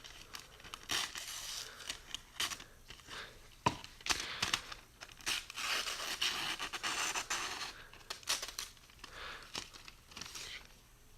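Freshly sharpened Kershaw 3410 folding-knife blade slicing through newsprint in a series of irregular hissing strokes, with paper rustling and a sharp click about three and a half seconds in. The paper tears a little in places rather than cutting cleanly.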